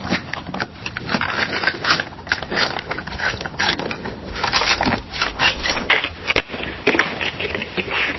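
Office ambience: a busy mix of short clicks, rustling and scraping from people working in a small room.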